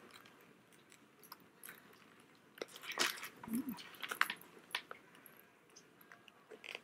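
Small metal clicks and clinks of a strap's snap hook being worked onto the metal ring of a faux-leather handbag, with light handling of the strap, the busiest clicking about halfway through.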